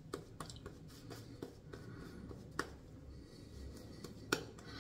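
Synthetic shaving brush (Yaqi Timberwolf) working lather over the face for the second pass: a faint, scratchy brushing with many small crackles. There are two sharper clicks, a little past halfway and near the end.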